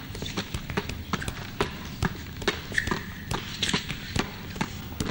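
Basketballs bouncing on a hard gym floor and smacking into hands: many quick, irregular thumps, several a second.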